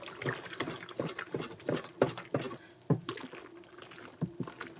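A spatula stirring a watery, foamy soap mixture in a large plastic tub: irregular sloshes and light taps, several a second, growing sparser near the end.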